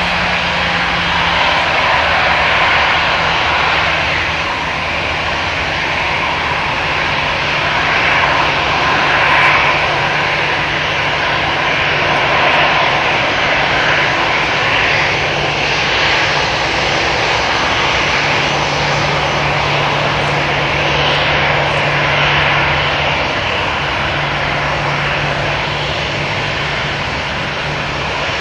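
Airbus A319-111 airliner's CFM56-5B turbofan engines running steadily at low power as it taxis: an even jet rush and whine with a low hum underneath, with no spool-up.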